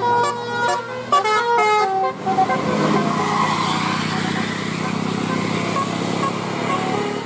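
Multi-tone 'telolet' bus horn playing a quick tune of stepped notes for about two seconds, then a steady engine and road rumble.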